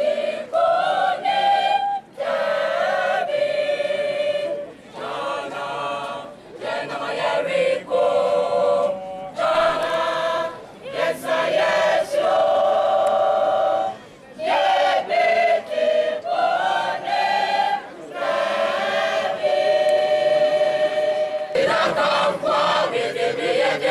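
A school choir singing without accompaniment, in short phrases of a second or two separated by brief pauses.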